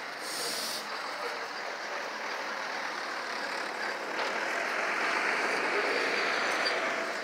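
Steady noise of fire trucks running, growing louder about four seconds in, with a short high hiss near the start.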